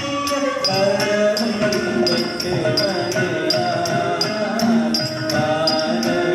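Carnatic music for a Bharatanatyam dance: a gliding melodic voice line with accompanying instruments, and bright metallic strikes keeping a steady beat, about three a second.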